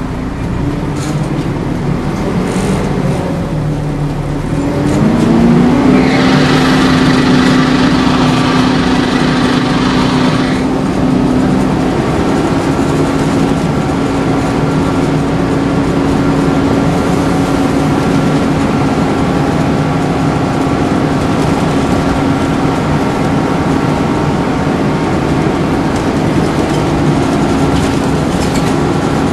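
Volvo Wright Renown bus with its engine cooling fan running loud over the engine. The fan's hum rises in pitch between about three and six seconds in as it speeds up, then holds steady. A strong hiss rides on top from about six to ten seconds in.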